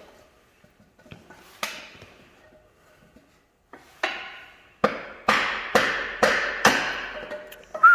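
Hammer blows on metal, knocking a cylinder liner loose from a tractor engine block, each strike with a short metallic ring. A few spaced knocks are followed by five in quick succession, about two a second, and a brief falling squeak comes right at the end.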